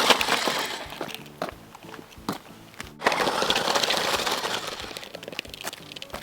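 Two bursts of crackling, rustling noise, one at the start and one about three seconds in, each fading away over a second or two, over quiet background music.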